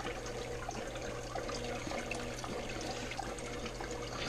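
Water trickling and splashing from an aquarium siphon hose as it draws debris out of the tank and drains it into a bucket, steady throughout with small scattered ticks.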